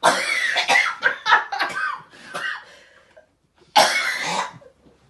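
A person coughing hard after eating raw lemon, in a long bout at the start and a short one about four seconds in.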